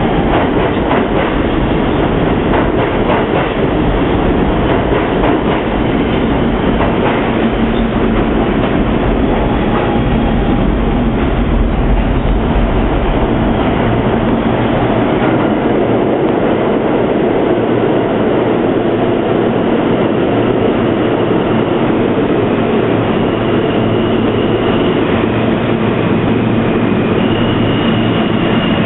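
R160 subway cars running through an underground station: a loud, continuous rumble and clatter of steel wheels on rail. In the last several seconds, as cars pass close by, a thin high whine joins in over a low steady hum.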